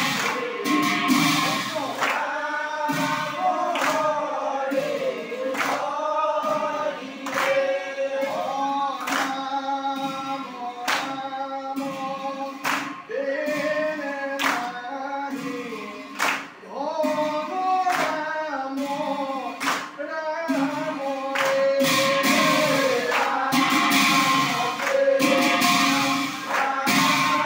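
Men's chorus singing an Assamese devotional naam chant together, with small hand cymbals struck about once a second over a steady held note. The singing and cymbals grow fuller and louder near the end.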